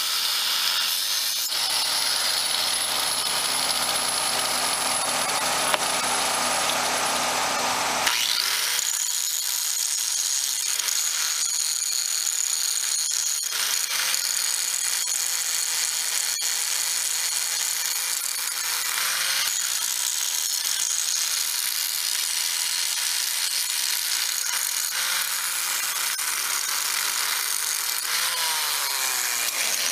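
Electric angle grinder grinding a thermite weld of a rail bond down smooth against the steel rail, a steady whine with the noise of the disc on metal. The deeper part of the sound drops away about eight seconds in.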